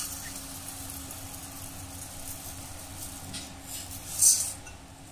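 Raw rice grains poured from a steel cup into a steel vessel, a brief hiss of falling grain about four seconds in, over a steady low hum.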